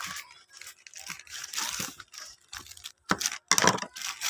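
Parcel packaging being torn open by hand: irregular tearing and crinkling bursts, loudest a little after three seconds in.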